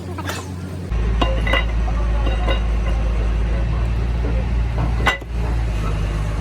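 Metal parts or tools clinking a few times in a workshop, with a sharper knock about five seconds in. A steady low hum comes on about a second in.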